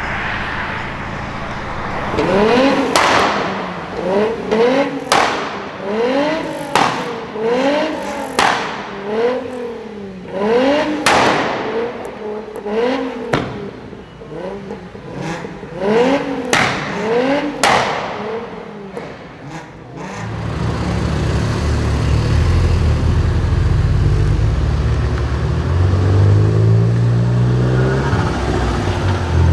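Volkswagen Golf R engine free-revved in quick blips, about one a second, each rev rising and falling, with sharp exhaust pops and crackles between them. About twenty seconds in, a louder, deeper engine sound takes over, its pitch stepping up near the end.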